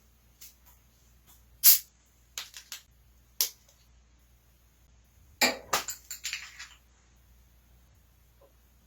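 Soda bottles being handled: a scattering of short, sharp clicks and crackles. The loudest comes about two seconds in, and a quicker run of them follows around six seconds in.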